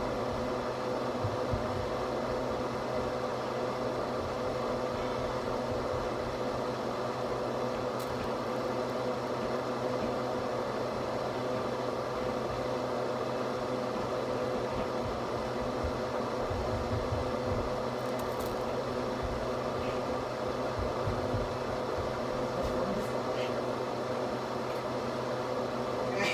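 Kitchen range hood exhaust fan running steadily: a constant hum with a steady mid-pitched tone.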